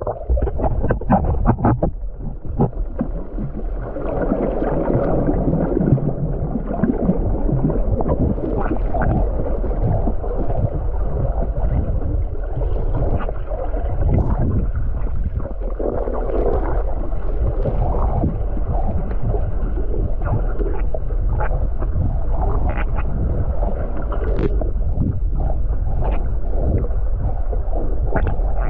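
Underwater sound picked up by a camera beneath the surface: a steady low rumble and water noise, with many short clicks scattered throughout.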